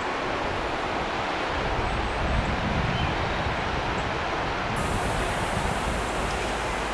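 Wind blowing across the microphone: a steady rushing noise over a deep, fluttering rumble. The hiss grows brighter about five seconds in.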